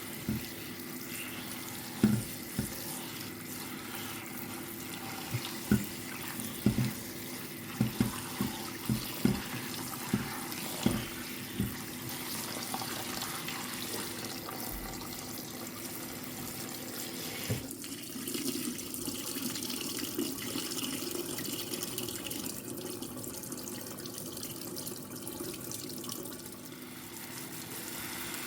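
Kitchen faucet running steadily into a sink, with a string of sharp knocks and clinks of kitchenware in the first twelve seconds or so and one more a few seconds later.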